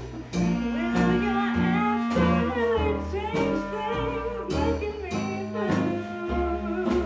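A woman singing with a small jazz band, over a steady walking upright bass line, clarinet and drums.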